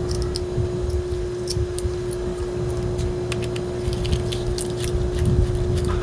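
Light metal clicks and taps from handling and adjusting a clipper-blade holder, over a steady low hum.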